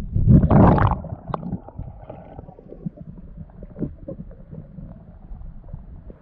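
Muffled underwater sound from a diver's camera in the sea: low water noise with scattered small clicks and knocks, and a loud rushing burst of water about half a second in.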